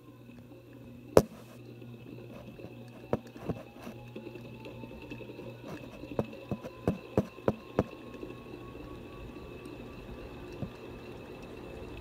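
Motor of a Moss Tropical Breeze Delux top-mount ceiling fan running, heard up close at the housing: a steady low hum and a faint high whine, with a thinner tone that slowly rises in pitch. Sharp clicks and taps sound over it, a loud one about a second in and a cluster between about six and eight seconds.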